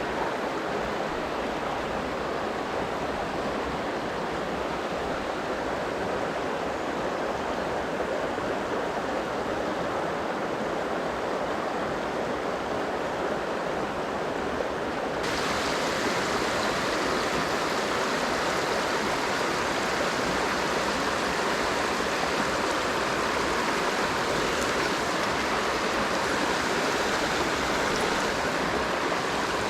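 Mountain stream water rushing steadily over rocks. About halfway through, the rush changes suddenly to a brighter, slightly louder one.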